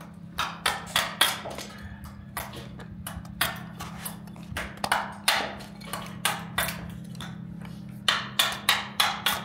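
An irregular series of sharp knocks, roughly two a second, each with a short ringing tail, over a steady low hum.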